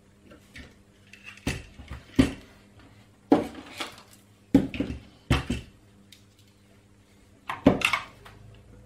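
Short knocks and clatters of hard plastic and metal, five or six clusters, as a PCB is clamped into a bench PCB holder and tools are handled on the workbench.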